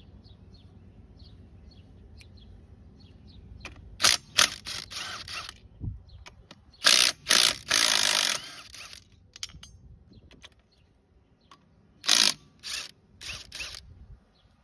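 Cordless impact wrench run in short bursts on the lug nuts of a Cragar mag wheel, loosening them for removal. There are two longer runs about four and seven seconds in, then a string of short bursts near the end.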